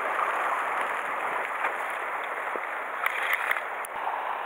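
Sea water washing against shoreline rocks: a steady hiss, with a few light clicks about three seconds in.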